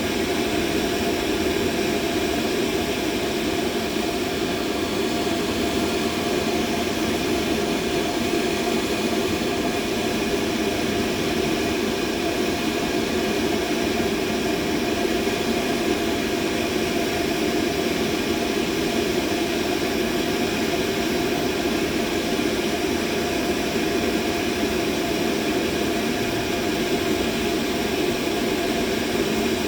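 Steady, unchanging machine noise, strongest in the low-middle range, with faint steady tones running through it and no change in level.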